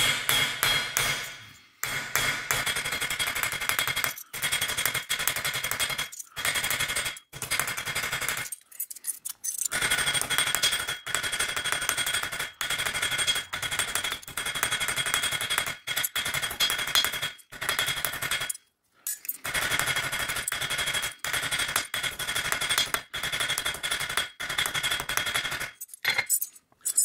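Dull cross peen hammer striking copper petals in fast runs of blows, with a metallic ring, texturing grooves into the copper. The runs stop briefly several times.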